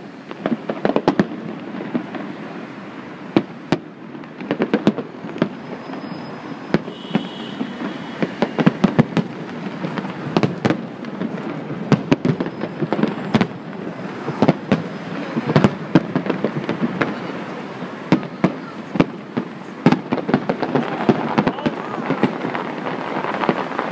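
Aerial fireworks display going off: a dense run of sharp bangs and crackles at irregular intervals, several in quick succession at times.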